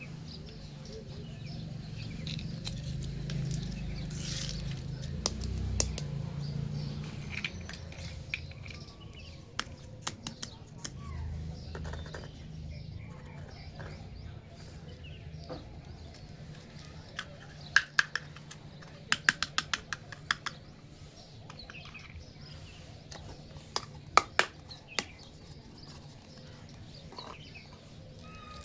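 Small plastic toy pieces clicking and tapping as they are handled, with quick clusters of clicks around the middle and near the end. Underneath are a low steady hum and faint bird chirps.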